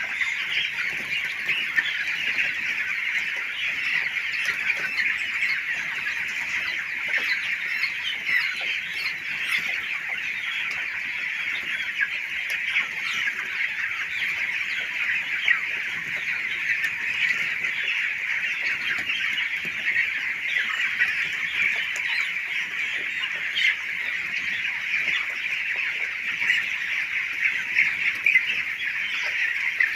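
A large flock of chickens in a poultry shed, many birds cheeping and clucking at once in a dense, unbroken high-pitched chorus, with scattered sharp clicks.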